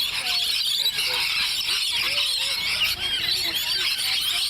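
A flock of rainbow lorikeets screeching continuously, a dense high-pitched chorus of many overlapping calls from hungry birds crowding in to be fed.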